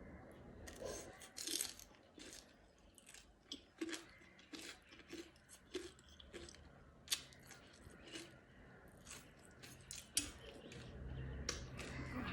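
A person chewing crunchy food close to the microphone, with irregular sharp crunches throughout.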